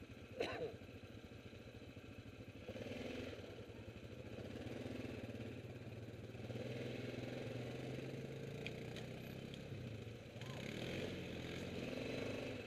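Yamaha ATV engine running at low revs, picking up a little as the quad creeps forward about three seconds in and again near the end. A brief sharp sound comes just after the start.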